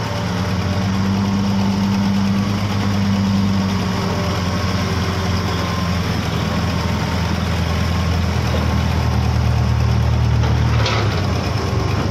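Diesel engines of a Hitachi hydraulic excavator and a Kobelco excavator working close by, running steadily as they dig and swing soil, the engine note shifting with the load. A short sharp sound comes near the end.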